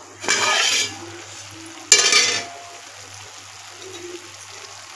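Aluminium pot lid lifted off a cooking pot with a short metal scrape, then a sharp clatter about two seconds in as it is set down beside the pot.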